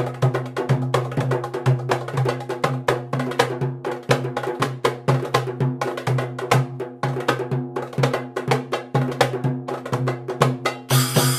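Darbuka (goblet drum) and large frame drum played together in a fast, dense drum rhythm: quick strokes with a deep, steady drum ring beneath. A bright, hissing wash comes in right at the end.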